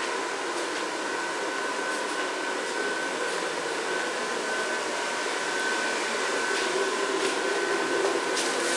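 Electric blower fan of an inflatable Christmas decoration running steadily: an even whir with a thin, constant whine and a few faint ticks.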